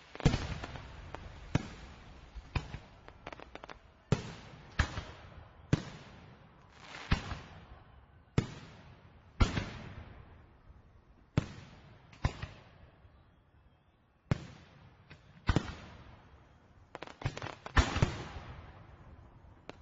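Fireworks exploding one after another, each sharp bang trailing off into a fading rumble and crackle. There are about fifteen bangs with a short lull just past the middle.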